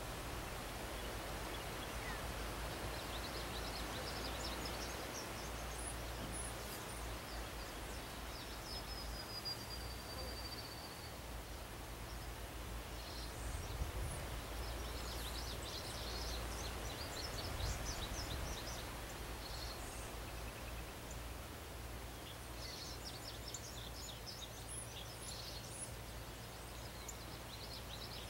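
Steady hiss under distant songbirds chirping and trilling high in pitch, in several spells, with one thin, slowly falling whistle about ten seconds in. Two soft low bumps come midway through.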